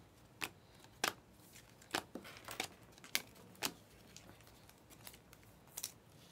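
Glossy Panini Select basketball cards being slid off a hand-held stack one at a time, each card giving a short, sharp snap. There are about eight snaps at an uneven pace, with a pause of over a second before the last two.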